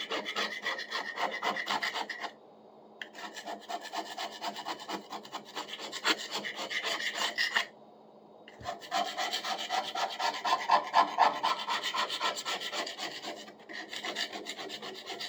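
The back edge of a knife scraping surface rust off a steel pruning-saw blade: fast, rasping strokes in four runs, with short pauses between them.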